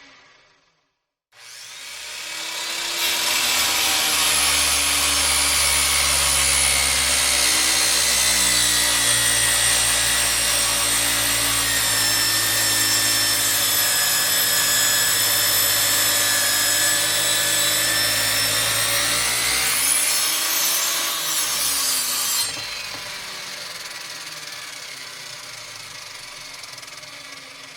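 Circular saw spinning up, then cutting through wood with a loud, steady whine for about twenty seconds. The cut ends suddenly about 22 seconds in, and the saw runs on more quietly, fading out.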